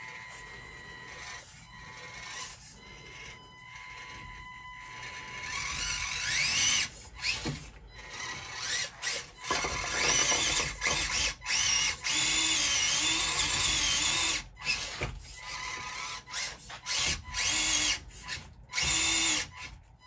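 Small electric motor and gearbox of a 1/24-scale RC crawler whining under throttle as its tires spin and scrabble on rock. It is quieter at first, then from about six seconds in comes in many short stop-start bursts with the whine rising and wavering. The spinning is what the driver puts down to sand sticking to the soft tires and hampering grip.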